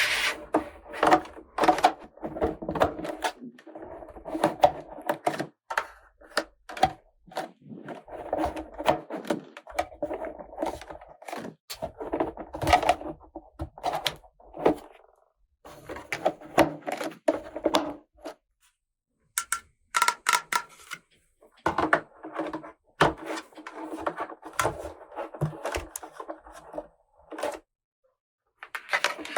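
Hard plastic toy pieces and packaging being handled: a dense run of clicks, taps and light knocks, broken by a few short pauses.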